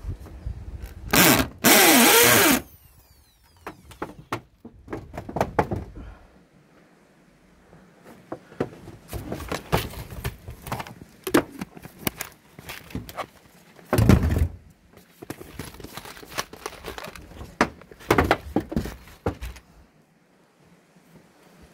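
Corded electric drill run in two short bursts about a second in: a brief spin, then a longer one. After that come scattered clicks, rattles and knocks from handling the drill and small parts, with one loud knock about two-thirds of the way through.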